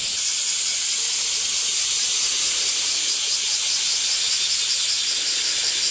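Chorus of cicadas: a loud, steady high-pitched buzz with a fast, even pulsing.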